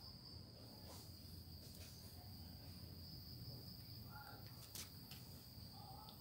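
Near silence: room tone with a faint steady high-pitched whine and a couple of faint clicks.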